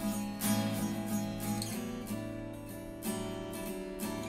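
Background music: an acoustic guitar strummed in a steady rhythm, the channel's intro theme song.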